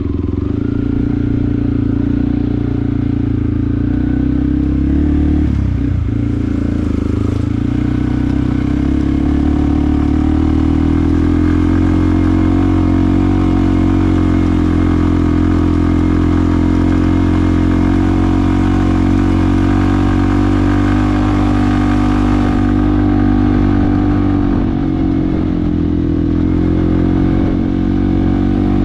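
Yamaha WR155R's single-cylinder engine running at a steady speed, with a brief dip in pitch about a fifth of the way through and a slight easing past the three-quarter mark.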